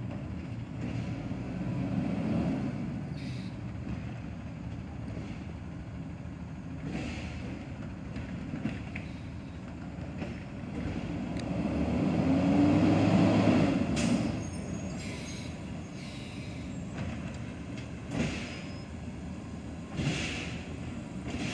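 Diesel engine of an automated side-loader garbage truck running as it works its way up the street. Around the middle the engine revs up and back down over about two seconds, followed by a sharp knock. Short air-brake hisses come near the end.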